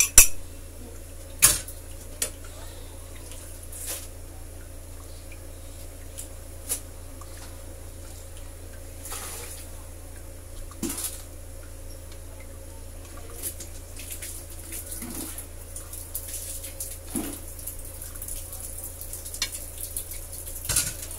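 Kitchen utensils knocking and clinking against a metal cooking pan of simmering curry, a few sharp knocks with the loudest in the first two seconds, over a steady low hum.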